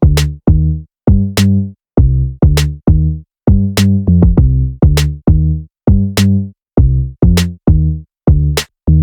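Electronic background music: a drum-machine beat of short, choppy bass-heavy hits, each with a sharp click on top and brief silences between them.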